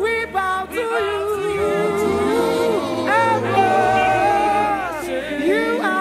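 Gospel worship singing: a woman's voice holds long notes that glide up and down, over a steady low backing.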